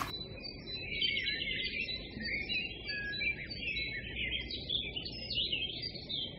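Small birds chirping and twittering in quick, overlapping calls over a steady low hiss; the sound starts and stops abruptly.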